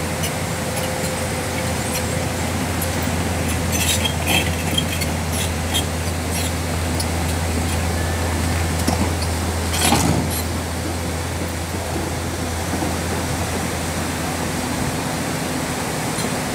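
Sunward tracked excavator's diesel engine running at a steady low hum as it crawls through a rocky river ford, over the rush of water. Sharp clicks and knocks from the tracks on stones come around four to six seconds in, with a louder knock about ten seconds in.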